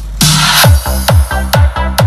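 Electronic dance music played loud: after a brief break with a rushing noise swell, a deep kick drum comes in about two-thirds of a second in and hits about four times a second.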